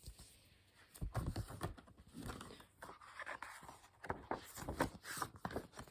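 A paper picture book being handled, opened and its pages turned: irregular rustling and scraping of paper with small knocks.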